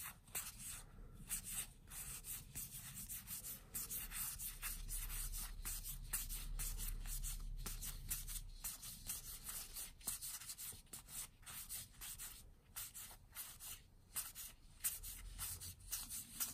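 A stack of Magic: The Gathering trading cards being flipped through by hand, card sliding over card in many quick, irregular rubs and flicks.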